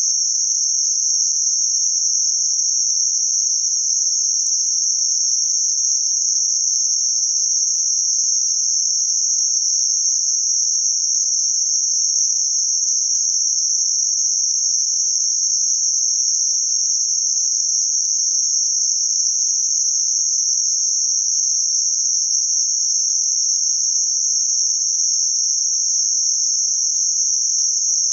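Synthetic band-limited noise centred on about 6 kHz: a steady, even, high-pitched hiss that does not change.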